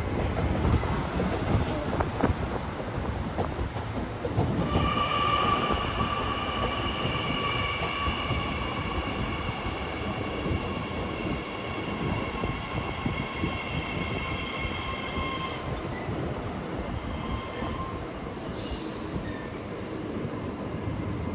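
A train rolls past with a steady rumble. From about five seconds in, a high-pitched wheel squeal sets in, holding a constant pitch for about ten seconds before it stops.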